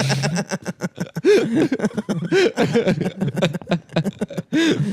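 Men laughing and chuckling, voices overlapping, in short rising-and-falling bursts.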